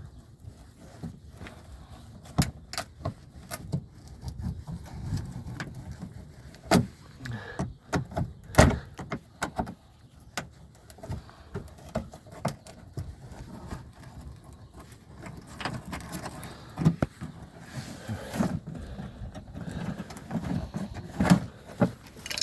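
Hand tool and plastic wheel-well liner being worked: irregular clicks, taps and plastic rattles as a small screw is driven out and the liner handled, with one sharp knock near the middle.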